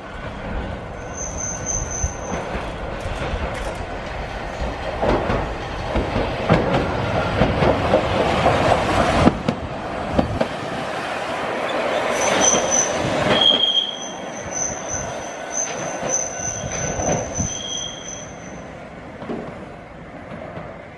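Hankai Tramway Mo 601-type tram running close by, its wheels clattering over the rail joints with a rumble that peaks in the first half. High-pitched wheel squeal comes in short runs as trams take the curved track, mostly in the second half.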